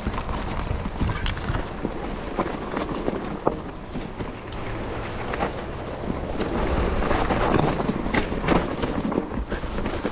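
2021 Giant Trance X 29 full-suspension mountain bike descending a dirt singletrack: tyres rolling over dirt and roots, with frequent knocks and rattles from the bike over bumps. Wind buffets the action-camera microphone.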